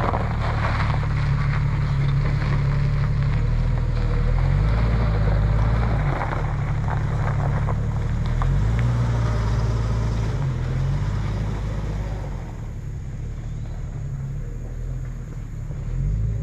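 Jeep Grand Cherokee ZJ engine revving up and easing off repeatedly as the Jeep is driven hard over a gravel lot, with tyres crunching on the gravel. It fades about twelve seconds in and builds again near the end.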